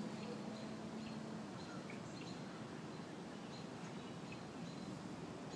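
Outdoor ambience with faint, scattered bird chirps over a steady background hush; a low steady hum stops about a second and a half in.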